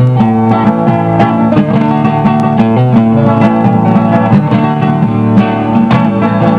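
Instrumental break of a caipira song: plucked and strummed acoustic strings, typically viola caipira with acoustic guitar, playing a steady run of notes between sung verses.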